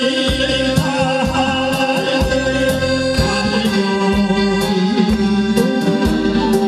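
Trot song performed live: a singer's wavering vocal melody over band accompaniment with a steady beat.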